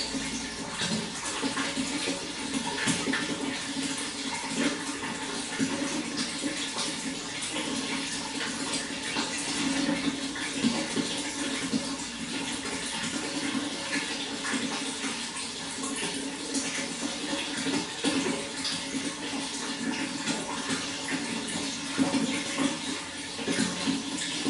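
Running water splashing and trickling steadily, with many small irregular splashes.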